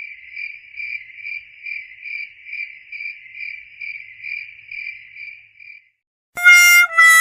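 Cricket-chirping sound effect: a steady, even run of high chirps, about two a second, the stock 'awkward silence' gag played after a fail. It stops shortly before a loud brassy musical tone comes in near the end, stepping down in pitch like a sad-trombone fail jingle.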